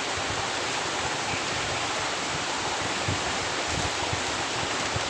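Steady, even rushing outdoor noise, with a few faint soft knocks about three and four seconds in.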